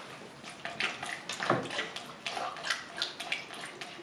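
Antifreeze poured from a plastic jug through a funnel into an ATV's coolant tank, splashing and gurgling in uneven spurts.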